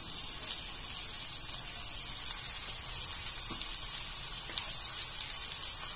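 Flour-dredged pork ossobuco searing in hot lard in a cast-iron pan: a steady sizzling hiss with scattered small crackles.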